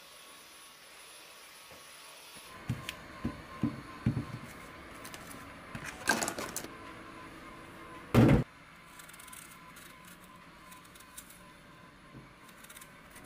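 Knocks and clatters of objects being handled, with a denser clatter about six seconds in and one loud thump about eight seconds in.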